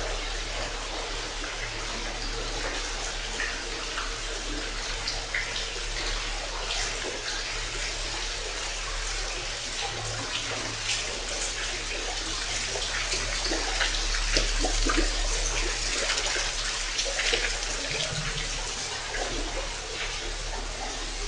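Water churned by the propeller of an electric narrowboat moving through a brick canal tunnel: a steady wash with many small splashes and trickles, over a low steady hum. No engine runs, only the electric drive.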